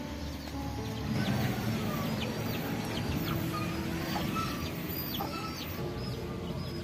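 Chickens clucking, with many short high chirps throughout.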